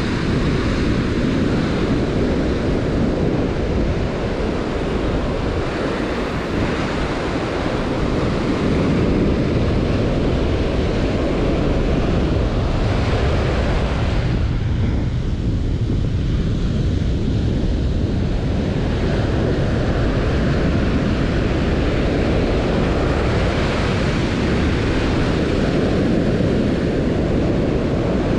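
Ocean surf breaking and washing up a sandy beach, a steady rush of noise, with wind buffeting the microphone.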